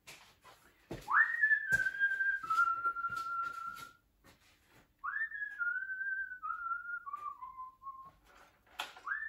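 A man whistling a tune in three phrases, each swooping up and then stepping down through a few held notes, with small clicks and knocks of handling in between.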